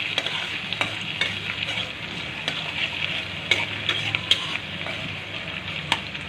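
Chopped garlic sizzling steadily in hot oil in a kadai, with scattered sharp clicks of a spatula stirring it against the pan.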